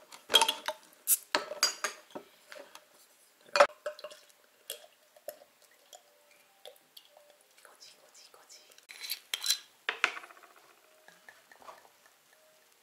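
Glass bottles, glasses and tableware clinking and knocking: several sharp taps in the first two seconds, a single loud knock near four seconds, and a denser run of clinks about nine seconds in.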